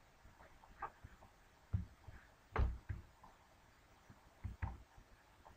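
A few faint, irregular clicks and soft knocks from a computer mouse and keyboard being used at a desk, the loudest about two and a half seconds in.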